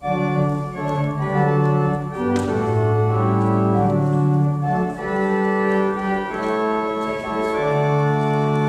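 Organ music that starts suddenly and plays slow, held chords, the notes changing every second or so.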